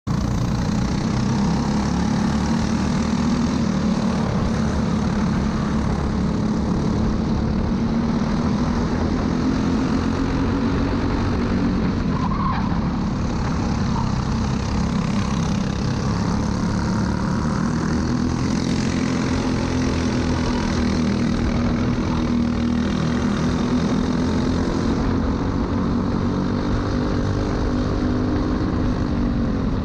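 Briggs & Stratton LO206 four-stroke kart engine running at racing speed, heard from onboard, its pitch rising and falling as the kart brakes for corners and accelerates out, over a steady rush of wind and tyre noise.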